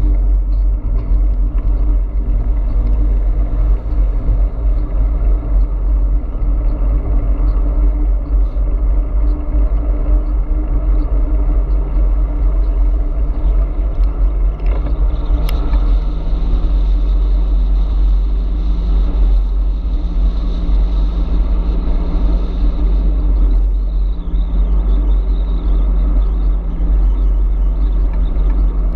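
Heavy, steady wind rumble on the microphone of a camera mounted on an electric bike moving at speed. A car overtakes about halfway through, and a steady hum is added from then on.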